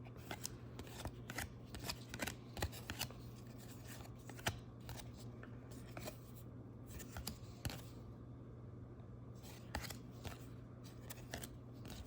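Trading cards and their packaging being handled: faint, irregular clicks and rustles of cards sliding and flicking, over a steady low hum.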